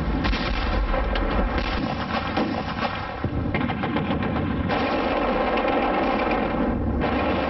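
Machine-gun fire in rapid runs of shots, amid other battle gunfire; about five seconds in the firing thickens into a denser, steadier rattle.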